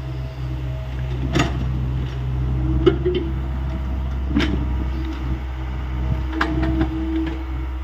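Hyundai 85A excavator's diesel engine running steadily, with four sharp knocks from the working machine at roughly one-and-a-half-second intervals.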